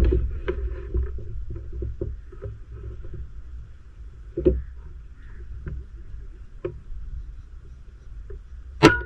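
Wind rumbling on the microphone with a few light handling knocks while the air rifle is held on aim, then one sharp shot just before the end as the air rifle fires a slug, the first shot to zero it at 90 yards.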